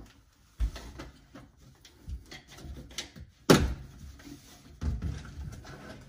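Clatter of a dryer vent connection being handled behind a clothes dryer: irregular knocks and rustling as the duct and vent fittings are worked, with one sharp knock about three and a half seconds in the loudest.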